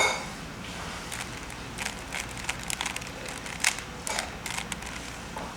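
Rubik's Cube layers being turned by hand: irregular clusters of quick plastic clicks and clacks from about two seconds in, after a brief sharp sound at the very start.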